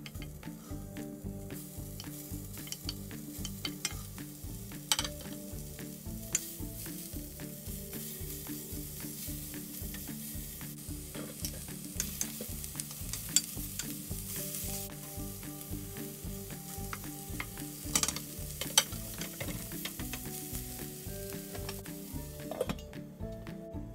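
Food sizzling in a frying pan while it is stirred, with scattered sharp clinks and scrapes of a utensil against the pan.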